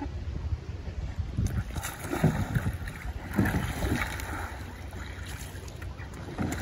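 Water splashing and sloshing around a sea kayak as it is leaned hard onto its side and brought back upright, the splashes bunched in the middle, over a steady low wind rumble on the microphone.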